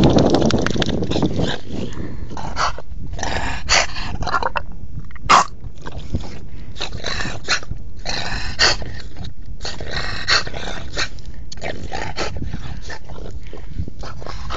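French bulldog growling in irregular bursts during rough play, with one sharp click about five seconds in.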